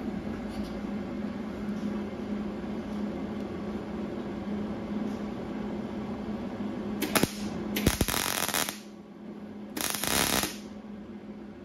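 MIG welder tack-welding a sheet-steel patch panel into a car hood: a sharp click, then two short bursts of arc crackle, each about a second long and about two seconds apart, in the second half. A steady low hum runs underneath.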